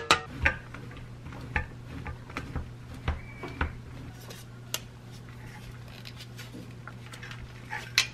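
Metal kitchenware clattering: a few sharp taps of a metal strainer against a cast iron pan in the first half-second, then a stainless box grater scraping and knocking in a metal bowl as a block of cheese is grated. A low steady hum runs underneath.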